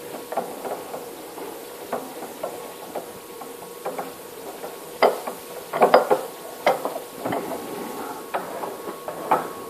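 Pillar drill running with a faint steady hum while its bit cuts into metal, giving irregular scraping and clicking that grows louder about halfway through.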